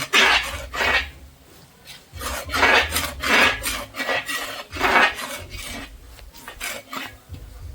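Spoon scraping and stirring against a cooking pot: a run of scraping strokes in several bunches with short pauses between.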